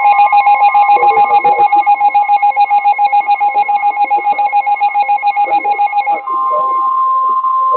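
Weather radio alert alarm sounding before a new severe thunderstorm warning. It begins as a rapidly pulsing two-tone beep, about ten pulses a second, then about six seconds in changes to a steady single warning tone.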